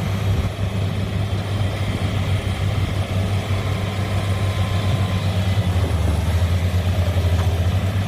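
Hitachi excavator's diesel engine running steadily with a low, even hum.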